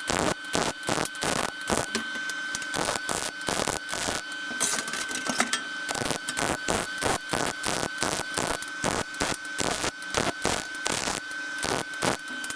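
Arc welder stitch-welding thin 24-gauge sheet steel in short crackling bursts, about two to three a second, with one longer continuous bead near the middle and a steady high whine underneath. The weld is running too hot for the thin sheet, warping the piece.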